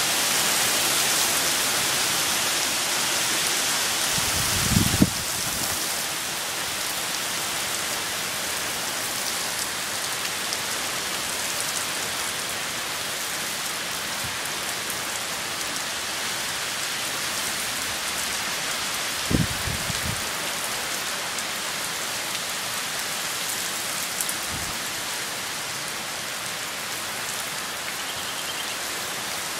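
Heavy rain pouring down steadily on a paved driveway and lawn, a dense, even hiss. Brief low thumps break through about five seconds in and again around twenty seconds in.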